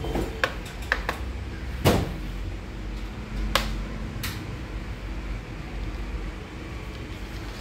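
Acer Predator Helios 300 laptop case being pried open with a pry tool: several sharp plastic clicks of the case clips, the loudest about two seconds in. A steady low hum runs underneath.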